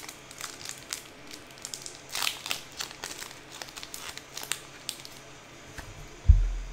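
Foil booster pack wrapper crinkling in the hands, with a denser stretch of crackling about two seconds in. A dull low thump near the end.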